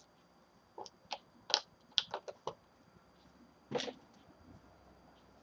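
Several short clicks and taps, then one louder knock about four seconds in: kitchen containers being handled and set down on the counter while smoothie ingredients go into a blender cup.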